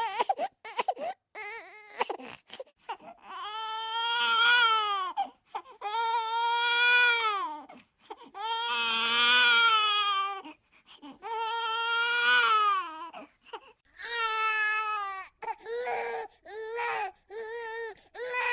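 A baby crying: short broken sobs for the first few seconds, then four long wails of about two seconds each with brief breaths between, and shorter, choppier cries toward the end.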